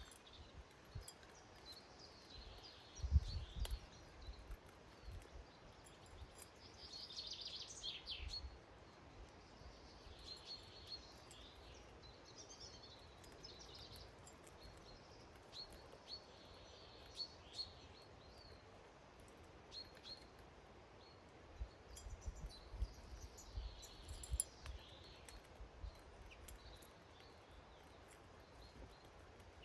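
Small garden birds giving short, high chirping calls on and off. A low thump about three seconds in, and more low bumps later on.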